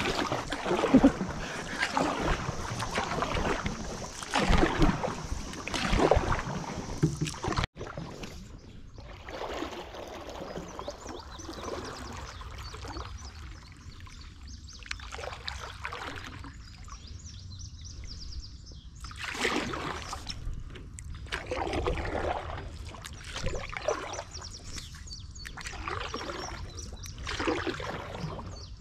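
Paddles stroking through river water, a swish every second or two over a steady low rumble. The first several seconds are louder and busier, and that stretch ends abruptly.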